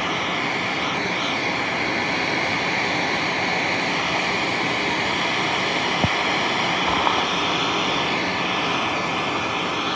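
Wagner Furno 300 electric heat gun running steadily, its fan blowing hot air in an even rush. A small click about six seconds in.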